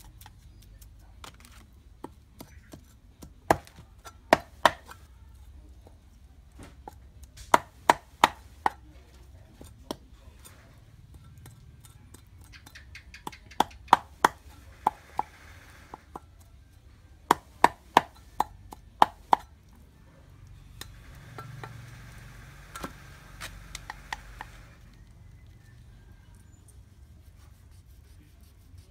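A knife chopping fish on a wooden cutting board, in quick runs of three to six sharp strokes. Softer scraping comes in between the runs.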